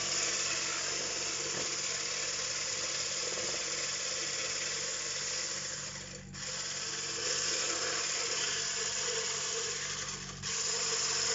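Electric hand mixer running, its beaters whisking raw eggs in a stainless steel bowl. The steady whirr dips briefly twice, about six seconds in and near the end.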